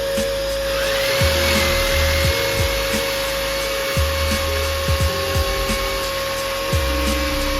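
Background music with a steady tone and a repeating deep bass beat. About a second in, a brief whine rises in pitch over a hiss and then levels off.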